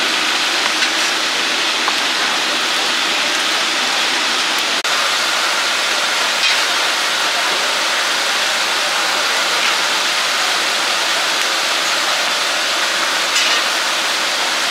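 Steady sizzling of oyster omelettes frying in oil on a flat griddle.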